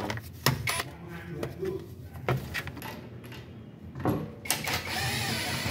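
Scattered sharp metal clicks and knocks of tools and parts. About four and a half seconds in, a cordless impact wrench starts running on a wheel's lug nuts and keeps going.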